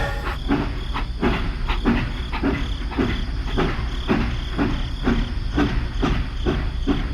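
A small motorised machine running with a steady, rhythmic clatter of about three knocks a second over a low hum.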